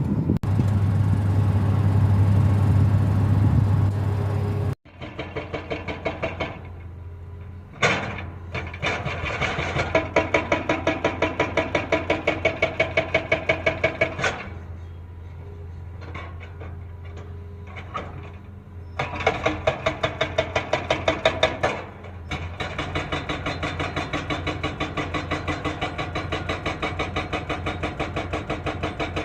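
Diesel engine of heavy construction equipment running with a steady rapid pulse, growing louder and quieter in turns. A loud noisy stretch at the start cuts off abruptly about five seconds in.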